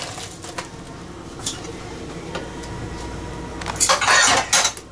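A metal spoon clinks a few times against a ceramic bowl of chocolate milk. Near the end comes a loud rustle, about a second long, as a ladyfinger biscuit is handled for dipping.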